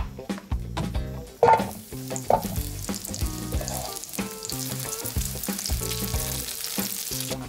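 Breaded mini pork cutlets frying in hot oil in a nonstick pan, sizzling steadily from about two and a half seconds in, after a few knocks near the start.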